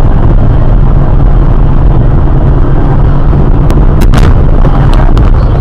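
Heavy, overloaded road and engine rumble inside a moving car's cabin, picked up by a dashcam microphone, with a few sharp clicks or knocks in the second half.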